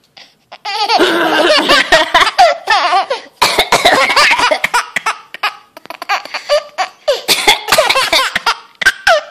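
A baby laughing hard in three long bouts, set off by its mother's coughing.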